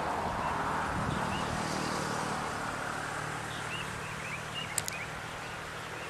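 Outdoor ambience: a steady rushing background noise with a low hum, small birds chirping faintly in the distance, and two sharp clicks close together about five seconds in.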